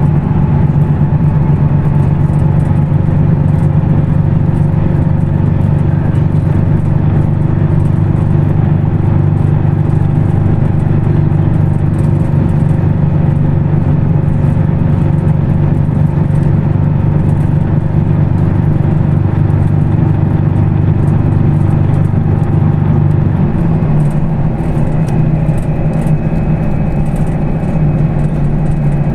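Weichai WP6NG210E50 natural-gas engine of a Higer KLQ6935GC5 city bus, running with a steady low drone. About 23 seconds in, the deepest part of the drone drops away and the engine note shifts.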